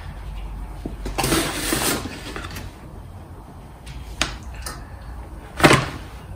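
A paper flour bag rustling, then a few light clicks and one sharp knock, the loudest, as a metal spoon and a plate are handled.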